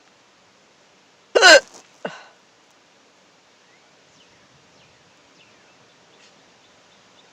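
A person hiccuping: one loud, sharp hiccup with a falling pitch about a second and a half in, then a fainter short sound half a second later.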